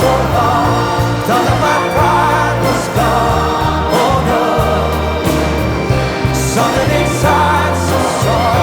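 Music with singing: a song with a vocal melody over steady bass notes.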